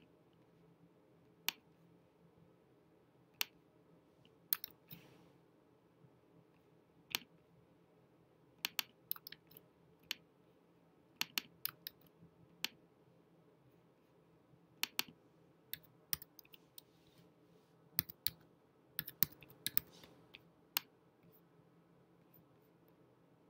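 Computer keyboard keys and mouse clicks: scattered single sharp clicks and short quick runs of them, as text is typed and entered into a web page.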